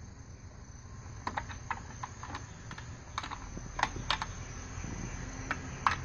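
About a dozen light, irregular clicks, starting a little over a second in, from a hand working the controls of a Honeywell gas water heater valve.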